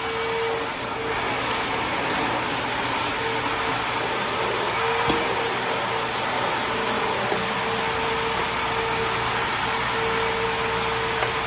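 Hoover Turbopower 7500 self-propelled WindTunnel upright vacuum cleaner running steadily, its whine dropping in and out, with a single click about five seconds in.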